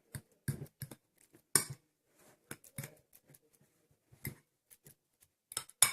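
A metal spoon tapping and clinking against a bowl as olive oil is spooned onto mashed garlic: about a dozen short, scattered clicks, the loudest near the end.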